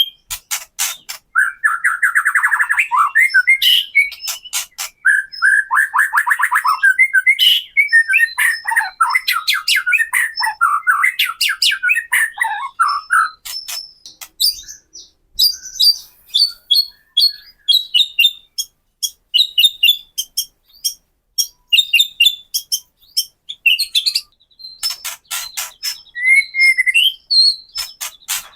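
White-rumped shama (murai batu) singing a lure song full of rapid dry clicking 'kretekan' notes mixed with warbled phrases. About halfway through, the song moves to higher, thinner chirps, then the clicks return near the end.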